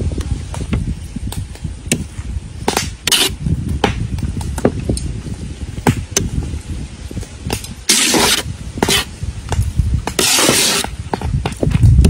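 Metal spoon stirring cooked rice in a metal pot: repeated clinks and knocks of the spoon against the pot, with two longer scrapes of the spoon along the pot in the second half.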